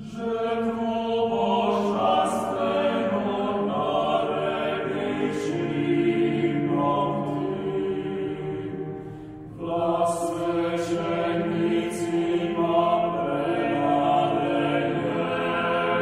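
A small mixed choir sings a Croatian sacred song in several parts, with long held notes. The singing breaks off briefly about nine and a half seconds in, then the next phrase begins.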